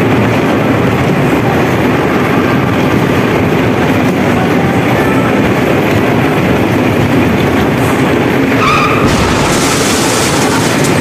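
Steady din of electric bumper cars rolling around a rink floor, with a short hiss near the end.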